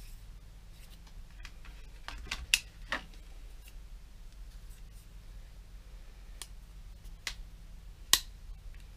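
Sharp plastic clicks and taps as DDR4 memory modules and their clear plastic clamshell tray are handled, a handful in all, the loudest about two and a half seconds in and again near the end, over a low steady hum.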